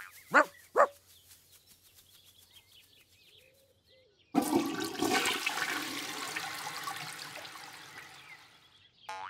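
Two short sheep bleats, then a toilet flushing: a sudden rush of water that gurgles and fades away over about four seconds.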